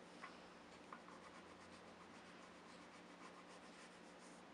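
Faint scratching of a drawing tool on paper, in quick, even strokes several times a second, as lines are drawn and shaded in on a cartoon dog. A couple of light taps come in the first second.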